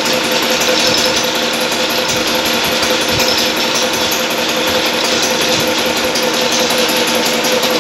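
Heavy metalworking machine tool running steadily, with a continuous mid-pitched tone and a fast, dense rattle.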